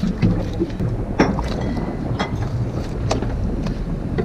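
Steady low wind-and-water rumble around a small fishing boat, with scattered sharp knocks and clicks from a fish being filleted on the boat's cutting board, the strongest about a second in.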